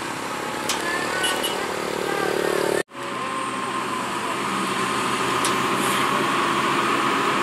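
Heavy hydraulic excavator diesel engines running under load, with a steady high whine that grows stronger in the second half. The sound drops out for a moment about three seconds in.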